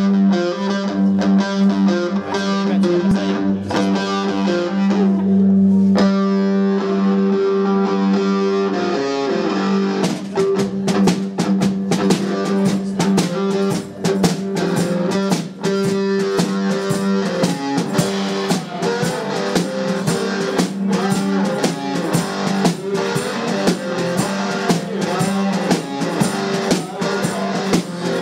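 Live garage blues-rock on electric guitar and drum kit: a distorted electric guitar riff, with the drums falling back for a few seconds and then coming in full and steady about ten seconds in.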